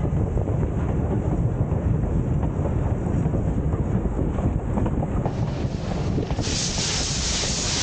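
Wind buffeting a microphone riding on a moving steam locomotive, over the steady low rumble of the running train. Near the end a loud hiss starts.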